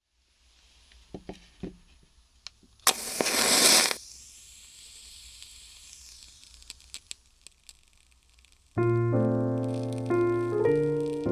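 Food sizzling in a frying pan, with a few clicks and a sudden loud burst of sizzling lasting about a second, about three seconds in, that fades back to a soft hiss. Piano music comes in near the end.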